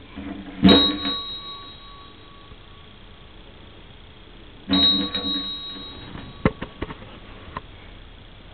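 A fire engine bell rung twice, about four seconds apart, each clang ringing on and fading over a second or two. A few light knocks follow.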